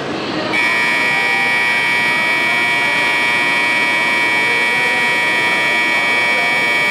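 Electronic departure signal on a Shinkansen station platform, sounding a steady ring of several fixed tones that switches on abruptly about half a second in and holds at an even level: the signal that the train is about to leave.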